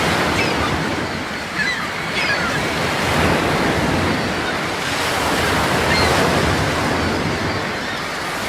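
Ocean surf: waves washing in and out in slow swells, with faint short high chirps over the rush of water.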